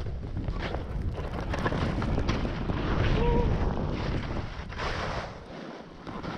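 Wind buffeting a GoPro action camera's microphone as a skier runs fast through deep powder, with the rough hiss of skis and spraying snow. The rumble eases near the end.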